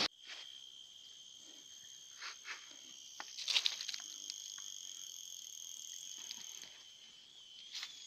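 Insects trilling steadily in a constant high-pitched chorus, with a few faint clicks and rustles; the loudest rustle is about three and a half seconds in.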